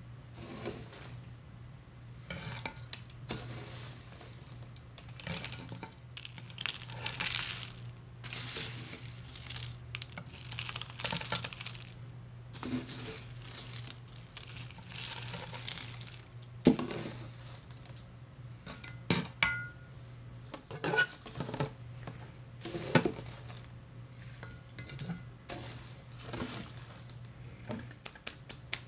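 Dark granular potting mix scooped with a plastic trowel and poured into a clear container around a snake plant: repeated gritty pours and scrapes, then sharp clinks and knocks against the container in the second half.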